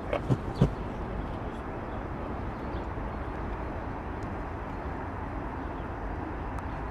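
Steady outdoor rumble of distant traffic and wind, with a few short sharp sounds in the first second.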